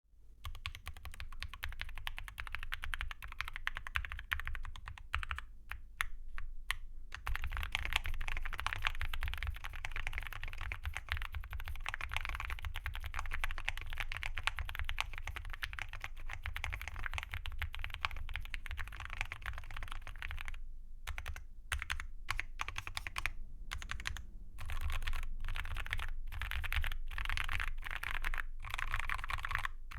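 Typing on an Akko MOD007 v3 mechanical keyboard with Akko Rosewood linear switches, an FR4 plate and Cherry-profile PBT keycaps: a steady run of fast key clacks. It slows to a few separate key presses twice, around six seconds in and again a little past twenty seconds.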